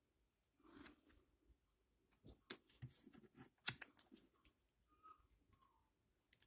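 Small plastic toy pieces being handled and pressed together, making faint scattered clicks and rustles, with two sharper clicks about two and a half and three and a half seconds in.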